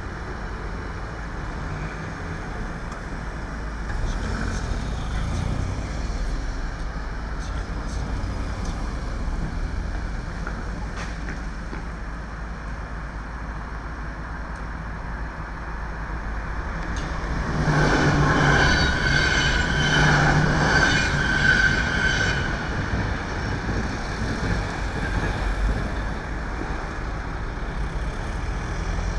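A train passing a level crossing over steady low rumble and road noise. About two-thirds of the way in it grows loudest for several seconds, with a steady high ringing tone in two stretches.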